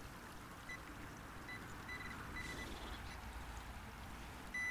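Quiet digging and scraping in loose soil with a hand digging knife, while a metal detector gives several short, faint, high beeps at irregular moments as it picks up a metal target in the hole.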